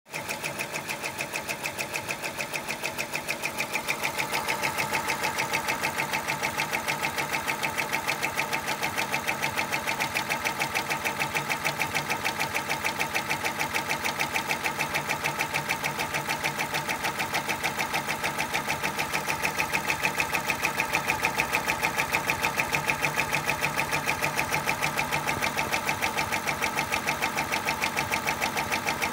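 Brother 10-needle embroidery machine stitching at speed, its needle bar hammering in a fast, even rhythm while it sews a patch border. It gets a step louder about four seconds in.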